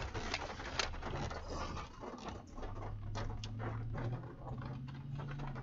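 Inside a moving vehicle: a steady engine and road drone that rises slightly in pitch a little over two seconds in, with scattered taps of rain striking the car.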